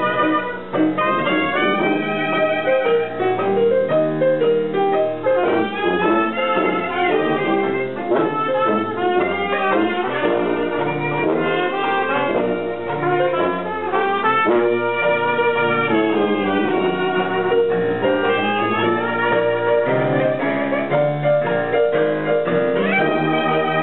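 Hot jazz band playing, with brass instruments carrying the melody and some notes sliding in pitch.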